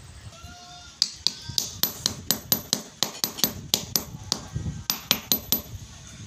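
A small hammer tapping quickly on the pattern in a sand-casting mold, about four light taps a second with a thin metallic ring, rapping the pattern loose in the sand before it is drawn out. The tapping starts about a second in and stops about a second before the end.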